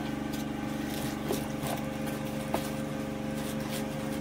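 Steady drone of a generator engine running, with a few light rustles and clicks of plastic packaging and cardboard being handled.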